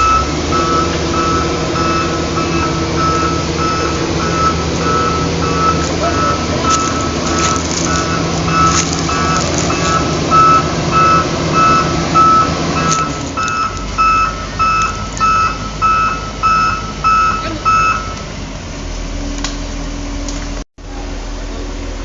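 A heavy construction vehicle's reversing alarm beeping steadily, about twice a second, over its running engine, with a few sharp knocks midway. The beeping stops near the end while the engine keeps running.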